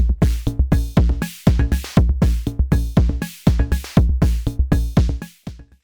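Arturia DrumBrute Impact analog drum machine playing a steady programmed beat of deep kick hits and bright cymbal and percussion strokes. The pattern stops suddenly near the end.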